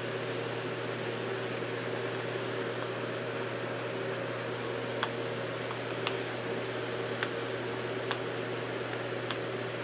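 Steady low hum of a fan or similar running machine in a small room, with a few faint light ticks about once a second in the second half.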